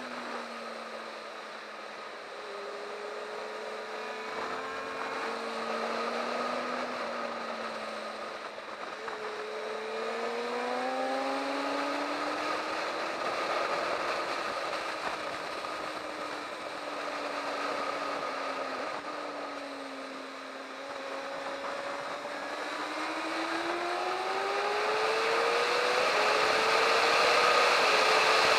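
Sport motorcycle engine heard onboard at track speed, its pitch falling and rising as the bike brakes and accelerates through corners, then climbing steadily near the end with quick dips at gear changes as it pulls onto the straight. Wind rushes over the microphone.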